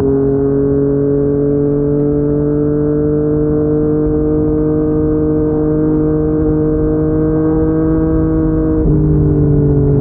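Yamaha MT-09's three-cylinder engine through a Yoshimura R55 slip-on exhaust, pulling under steady throttle with its pitch creeping slowly upward. Near the end the note breaks briefly and settles a little lower, as with an upshift.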